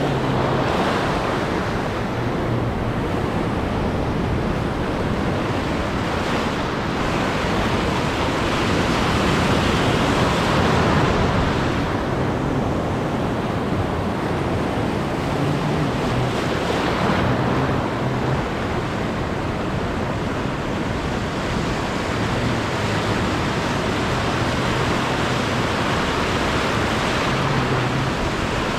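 Sea waves washing onto a shallow coral reef shore, a steady rushing noise that swells and eases every several seconds, with wind buffeting the microphone.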